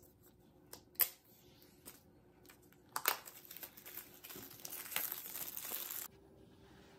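Clear plastic shrink-wrap on an Apple Pencil box being torn open by its pull tab and peeled off. A few sharp snaps about a second in, then continuous crinkling from about three seconds in that stops abruptly about a second before the end.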